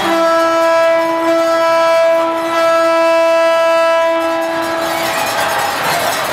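A horn sounds one long, steady note for about five seconds and then stops, over the crowd's noise.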